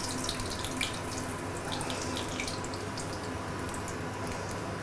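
Hot cooking oil in a stainless steel frying pan sizzling steadily, with many small scattered crackles.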